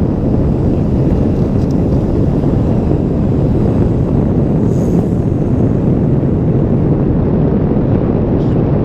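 Steady low rumble of a moving car: road and wind noise.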